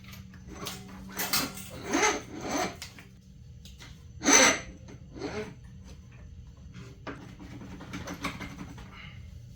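Irregular metal clunks and scraping as a Honda CR85R's front fork tubes are worked up into the triple clamps, with one sharp knock about four seconds in. A steady low hum runs underneath.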